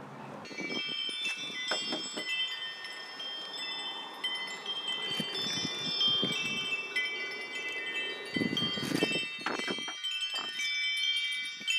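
Wind chimes ringing, many overlapping metallic tones that sustain and layer over one another. A few dull thumps come near the end.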